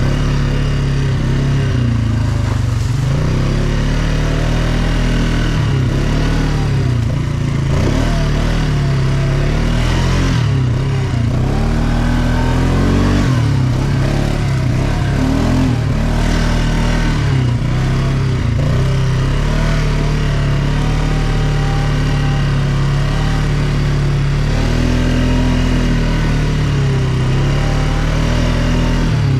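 ATV engine running under way, its pitch rising and falling again and again as the throttle opens and closes.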